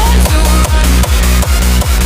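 Electronic dance music with a heavy, fast bass-drum beat of about four beats a second.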